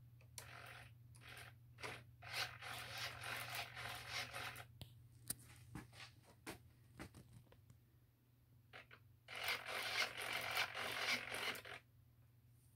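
Two RC aileron servos in the wing centre section whirring in short bursts as they drive the ailerons, which are rigged as flaperons. About nine seconds in comes a longer run of whirring that lasts a couple of seconds. A low steady hum sits underneath.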